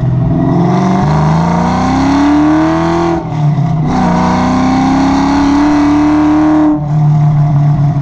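Car engine accelerating through the gears. Its pitch climbs steadily, then drops with a brief dip at a gear change about three seconds in, climbs again, and changes gear once more near the end.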